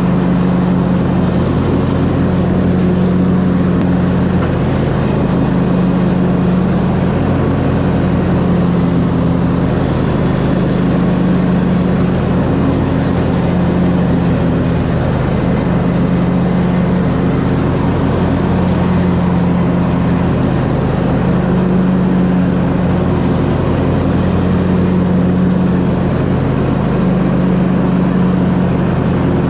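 Gas lawn mower engine running steadily under mowing, its level swelling and easing slightly every few seconds.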